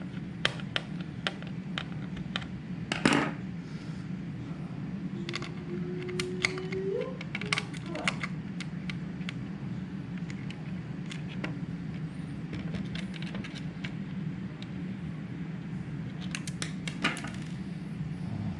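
Small screws being started by hand into the new display panel of a Bluetti EB240 power station: scattered light metallic clicks and ticks of the screwdriver and screws, over a steady low hum.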